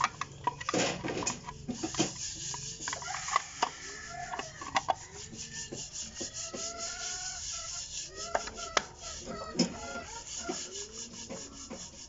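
Plastic pressure-switch cover being handled and slid against the switch body of an electric water pump: scraping and rubbing with sharp clicks and knocks. Chickens cluck repeatedly in the background.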